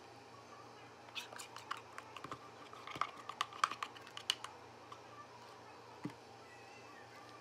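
Spoon scraping and clicking against a bowl and a clear plastic pint container as soft homemade ice cream is spooned in: a quick flurry of sharp clicks and scrapes for a few seconds, then a single knock near the end.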